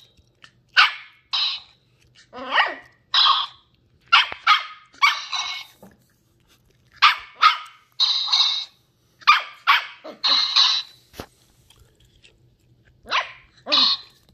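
Ten-week-old Shetland Sheepdog puppy barking at a toy: short high-pitched yaps in clusters of two or three, with a pause of about two seconds near the end.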